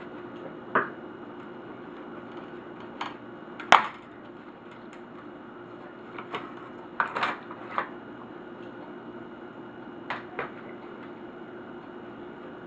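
Irregular sharp clicks and knocks of hard plastic and metal laptop parts being handled during disassembly, the loudest nearly four seconds in, over a steady low hum.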